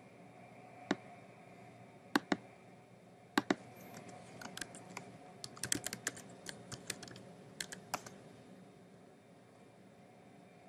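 Computer keyboard typing: a few separate clicks, then a quick run of keystrokes as a password is typed, stopping about eight seconds in.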